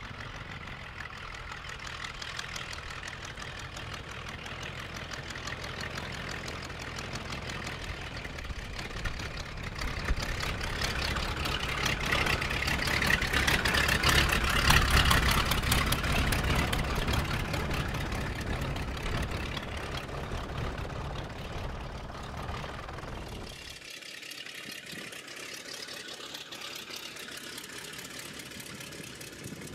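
Fw 44 Stieglitz biplane's Siemens Sh 14 seven-cylinder radial engine running at low power as the aircraft taxis, with propeller noise. It grows louder to a peak about halfway through, then eases. About two-thirds through it suddenly turns thinner and more distant.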